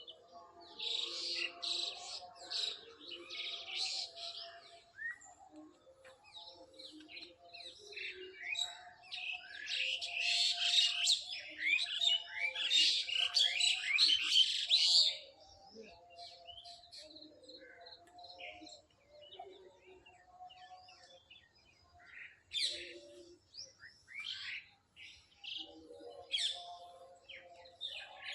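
Several birds chirping and trilling together, with short, lower-pitched calls underneath. The chorus is densest in the middle and thins to scattered chirps in the second half.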